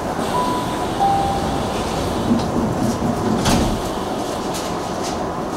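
Commuter train standing at a station platform with a steady background hum. A two-note chime falling in pitch sounds near the start, and a single sharp thump comes about three and a half seconds in.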